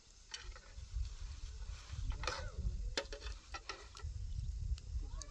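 A metal ladle scraping and clinking against a cooking pot as stew is ladled out, with a few sharp knocks over a low rumble.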